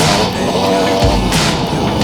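Loud background music with a heavy beat.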